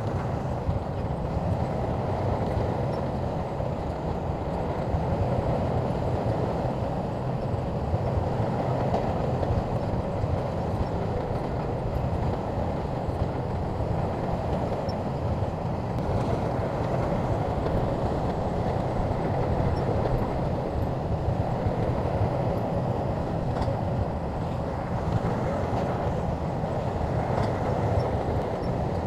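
SHANTUI crawler bulldozer's diesel engine running steadily under load as the dozer pushes and levels dirt.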